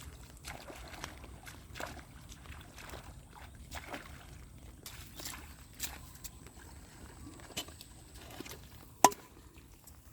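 Irregular small splashes and sloshing of water with scattered light knocks, and one sharp, much louder knock about nine seconds in.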